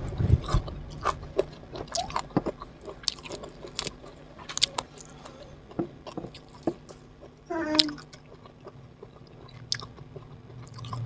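Close-miked eating: a person chewing and biting food, with irregular wet mouth clicks and smacks. About two-thirds of the way through there is a brief pitched sound.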